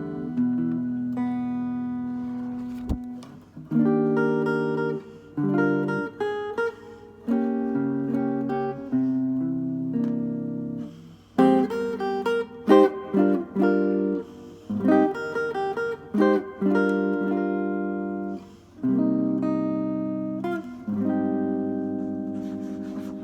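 Acoustic guitar playing chords and single notes; each plucked chord rings and fades before the next.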